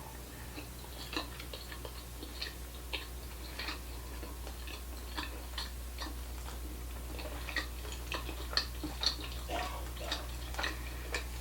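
Close-miked chewing of a sushi roll: soft, wet mouth clicks and smacks at an uneven pace, about two a second, over a steady low hum.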